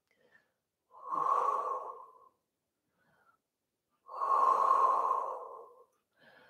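A woman breathing, two long breaths: one about a second in and a longer one about four seconds in.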